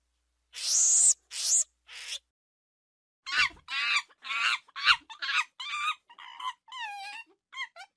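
Monkey calls: three loud shrieks in the first two seconds, then after a short pause a quick run of pitched chattering calls, several a second, some of them wavering.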